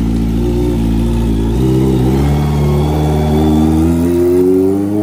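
Kawasaki Ninja ZX-25R's 250 cc inline-four running through an aftermarket racing exhaust: a steady, loud note, then a smooth rise in pitch from about a second and a half in as the bike pulls away.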